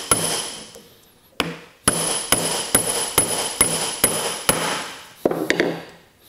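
Hammer blows on a brass drift, driving a small press-fit pin into a cast bracket of a LeBlond lathe's taper attachment. One blow comes first, then after a pause of about a second a steady run of eight blows at about two a second, each with a high metallic ring. Near the end there is a shorter knock and rattle as the hammer is set down.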